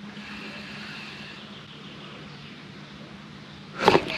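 A boat motor running with a steady low hum. Near the end a sudden loud burst of noise cuts in.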